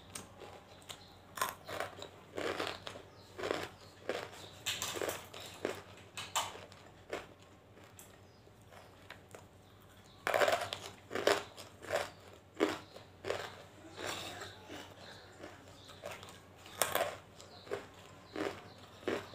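Hard white tabashir (banslochan) pieces bitten and chewed close to the mouth: a run of irregular crisp crunches, a pause of a couple of seconds, then a loud bite about ten seconds in and more crunching.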